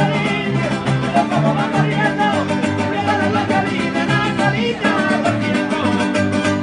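Live string band playing a lively tune: violins on the melody over a large folk harp and a guitar, with a plucked bass line moving in steady beats.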